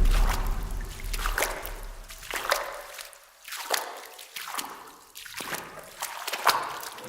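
Horror door sound effect: a run of faint clicks and short creaking sweeps that fall in pitch, tailing off after a louder sound at the start.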